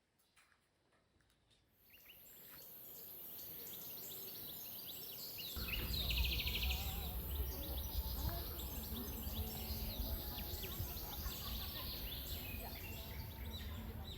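Outdoor ambience fading in after a near-silent start: birds chirping over a steady high hiss, with a low rumble and faint murmur of voices joining about five seconds in.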